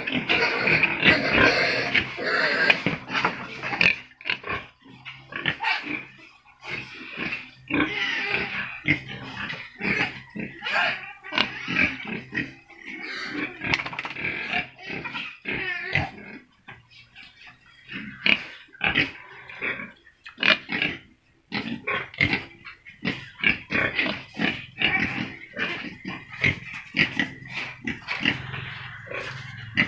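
Several pigs grunting in short, irregular bursts, with a couple of brief lulls midway.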